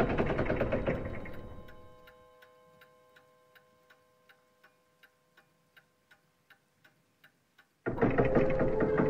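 A loud, dense ringing sound dies away over the first two seconds, leaving faint clockwork ticking, about three ticks a second, under slowly fading ringing tones. Near the end a loud dense sound with ringing tones cuts in suddenly.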